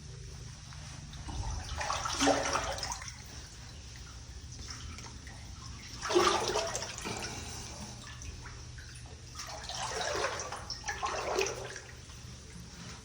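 Feet wading through muddy water, sloshing and splashing in three spells: about a second in, around six seconds, and again near ten seconds.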